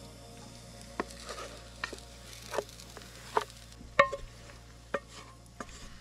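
A utensil knocking and scraping against a bowl and pan while pizza batter is tipped out: about one sharp clink a second, the one about four seconds in ringing metallically.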